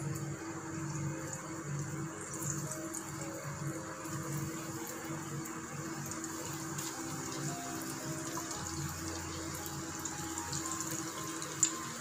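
Batter-coated chicken pieces deep-frying in hot oil in a kadai: a steady sizzle and bubbling, with a few small clicks as more pieces go in, the sharpest near the end.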